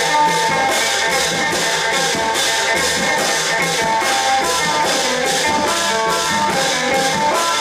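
Thai long-drum (klong yao) ensemble playing, with cymbals struck in a fast, steady beat over drums and a sustained melody line.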